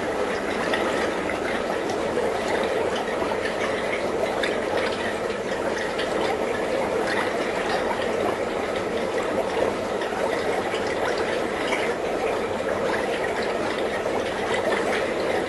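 Chenin blanc juice fermenting in a barrel: a steady, dense fizz and crackle of countless carbon dioxide bubbles rising and bursting, the sound of active fermentation.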